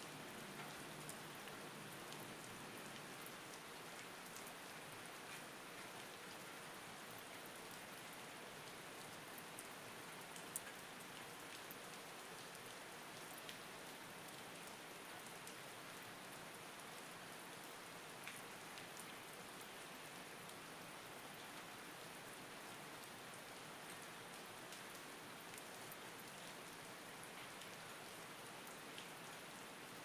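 Steady rain falling, an even hiss with a few sharper single-drop ticks here and there.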